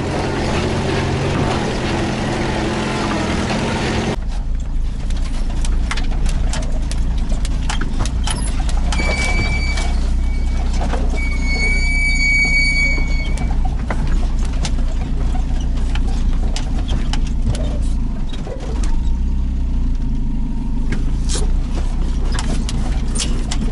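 UAZ off-road vehicle driving slowly over a rough, overgrown track: a steady low engine drone with frequent knocks and rattles. For the first four seconds it is heard from outside by the wheel with a rushing noise, then from inside the cabin. Twice around the middle a flat high squeak sounds for a second or two.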